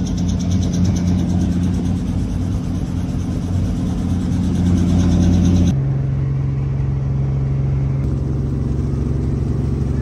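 A light helicopter's engine and rotor running, heard from inside the cabin: a loud, steady drone with a fast, even pulsing. About six seconds in the sound changes abruptly to a slightly higher steady drone.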